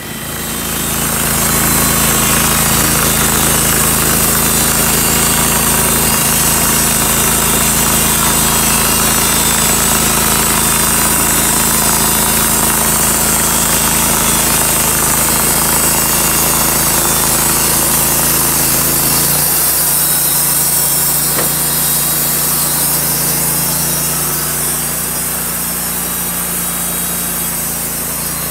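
Wood-Mizer LT35 hydraulic band sawmill cutting through a walnut log: the engine comes up from idle and gets louder over the first two seconds, then runs steadily under load while the band blade saws through the wood. About two-thirds of the way through, the engine note drops to a lower hum.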